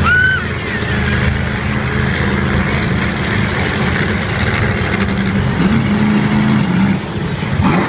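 Monster truck engine running loud and steady, its pitch rising and holding higher about five and a half seconds in before the level drops about seven seconds in. At the very start a child lets out a short, high excited squeal.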